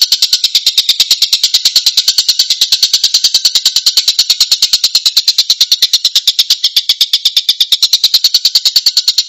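Tengkek (kingfisher) calling in a rapid, coarse, tight rattle of evenly spaced high notes, about ten a second, without a break: the 'tembakan' call used as a masteran recording for training songbirds.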